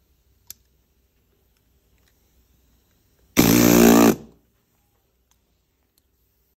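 A small handheld motorized device switched on briefly against velvet upholstery, giving one short buzz of under a second. A faint click comes about half a second in.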